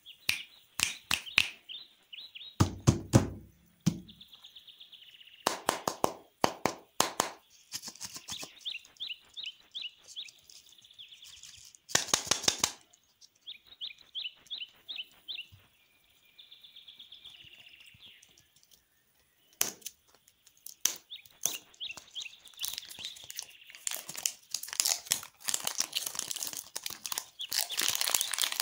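Plastic wrappers of Toybox ball lollipops crinkling and crackling as hands squeeze, rub and peel them, with rapid squeaky chirping from the rubbed plastic. A low thump comes between about two and four seconds in, and the crinkling grows denser near the end as a wrapper comes off.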